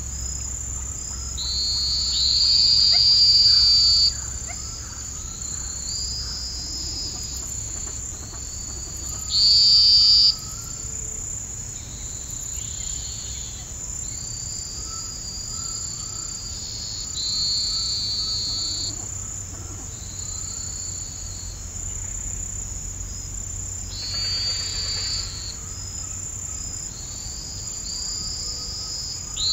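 Chorus of crickets and other insects: a steady high-pitched trilling, with louder insect calls a second or two long coming and going every few seconds.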